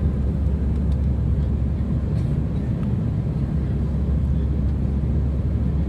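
Steady low rumble of a jet airliner's engines and rushing air heard inside the passenger cabin during the climb after takeoff.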